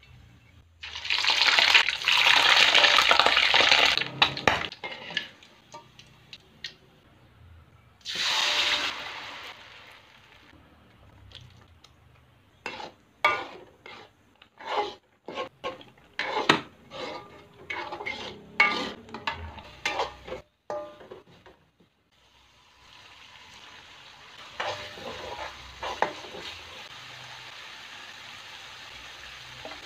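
Wet blended chili paste for sambal hitting hot oil in a metal wok and sizzling loudly in two bursts, then a metal spoon clinking and scraping against the wok as the paste is stirred, then a steady sizzle as the sambal cooks down and its water reduces.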